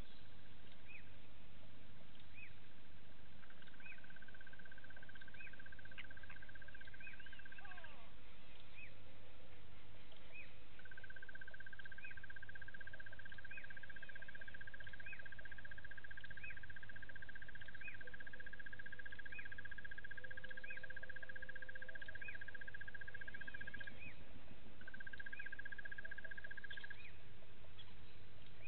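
Wild animal calls: a bird gives short chirps about once a second, over long even trills that start and stop, the longest lasting about thirteen seconds.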